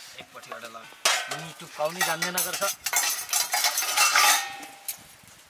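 Metal dishes and utensils clattering and scraping, loudest about four seconds in. A pitched call sounds over the start of it.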